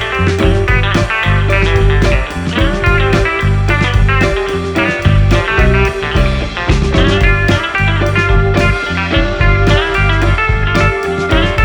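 Background music led by guitar, with a steady beat and a heavy bass line.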